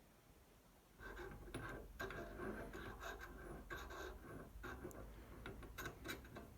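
Gloved hands handling drill-press parts and bits: faint, irregular rubbing and scraping with light clicks, starting about a second in.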